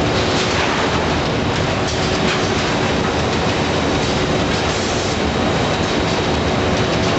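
Automatic open-mouth bagging machine running while it fills a bag with powder: a steady, loud mechanical noise with a constant hum running through it.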